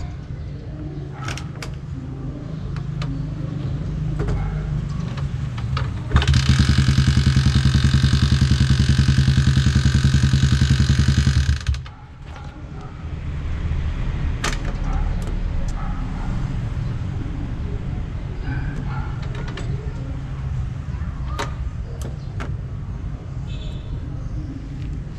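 Yamaha Sniper 150's single-cylinder engine running through a UMA Tru Pressure aftermarket exhaust: idling, then revved about six seconds in and held at high rpm for roughly six seconds, before dropping sharply back to idle.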